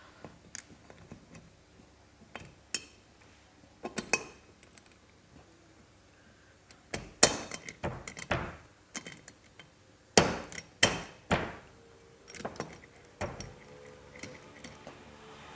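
Metal tools and engine parts clinking and knocking during motorcycle engine assembly: irregular sharp taps and clanks, the loudest coming in a cluster of knocks from about seven to eleven seconds in.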